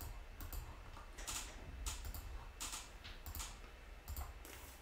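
Faint, irregular clicking of a computer keyboard being typed on, under a low steady hum.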